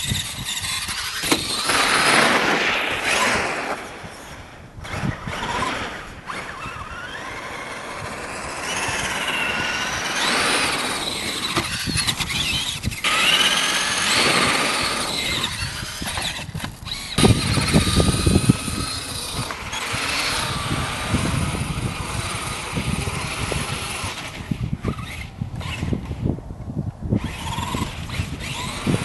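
Traxxas Summit RC truck's electric drivetrain whining, the pitch rising and falling again and again with the throttle, over the noise of its tyres on snow and ice.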